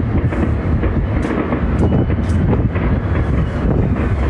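Distant fireworks display: a continuous rumble of overlapping booms with several sharper bangs and crackles standing out, some half a second apart, and wind buffeting the microphone.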